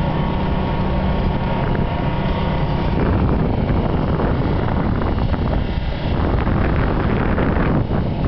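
Steady low drone of a fireboat's engines across the water, with wind rumbling on the microphone. A steadier humming tone within the drone stops about three seconds in.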